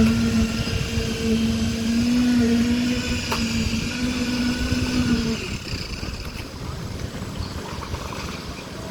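Construction machinery running with a steady pitched hum that cuts off about five seconds in, over ongoing machinery noise.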